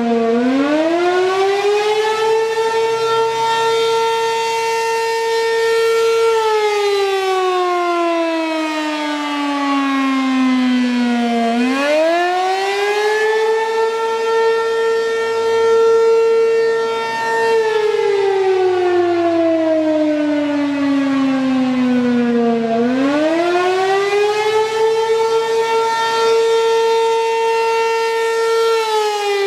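American Signal RM-127 outdoor warning siren sounding the attack signal, a loud rising-and-falling wail. Each cycle takes about 11 seconds: the pitch climbs in a second or two, holds high for about five seconds, then slides down for about five. The third rise comes near the end.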